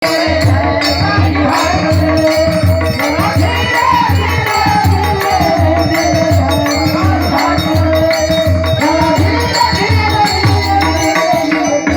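Devotional folk music: a hand drum keeps a steady beat of about two strokes a second, with small cymbals jingling over a sustained melodic line.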